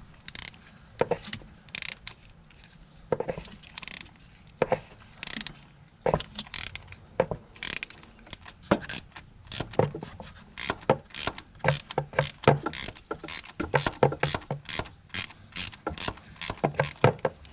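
Socket ratchet clicking in short back-and-forth strokes as it breaks loose and unscrews an old spark plug from the cylinder head of a Nissan 5.6 V8. The clicks come about once a second at first, then quicken to two or three a second from about halfway.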